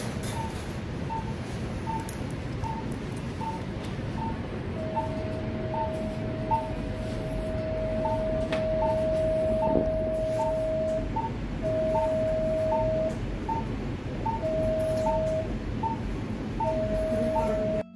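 Operating-theatre patient monitor beeping with the pulse, a short tone a little faster than once a second. Over it, from about five seconds in, an electrosurgical (cautery) unit sounds its lower steady activation tone in four stretches, the first long and the others a second or so each, above a steady theatre hum.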